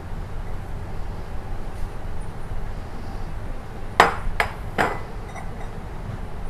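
Three quick sharp knocks of hard kitchenware, clinking and ringing briefly, about four seconds in, over a steady low background rumble.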